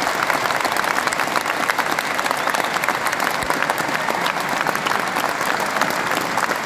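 Concert audience applauding: dense, steady clapping from many hands.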